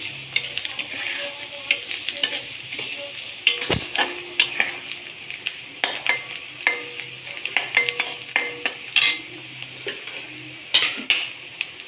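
Sliced onions and whole spices frying in ghee and oil in a kadai, sizzling steadily, while a spatula stirs them with frequent clicks and scrapes against the pan. The onions are nearly fried to a deep brown.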